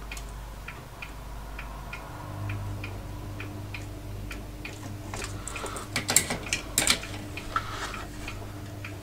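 Steady ticking, about three light ticks a second, over a faint hum. Around six to seven seconds in comes a short burst of clattering as the metal-cased power supply and its circuit board are handled and turned over on the bench.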